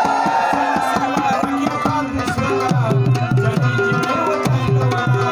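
Instrumental interlude of Pashto tapey music: rabab and harmonium play a repeating melodic phrase over a steady hand-drum rhythm with deep bass strokes, after a sung line trails off at the start.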